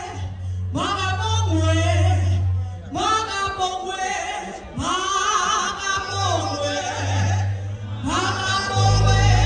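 Worship team singing a gospel song in drawn-out phrases with vibrato, a new phrase every couple of seconds, over a held low accompaniment note. The low note drops out for a few seconds in the middle and returns, going deeper near the end.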